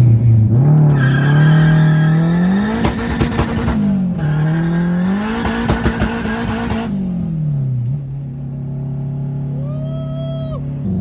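Honda Civic's engine revving up and dropping back twice, with a crackle at the top of each rev, then settling into a steady idle. A short whistle rises and falls about ten seconds in.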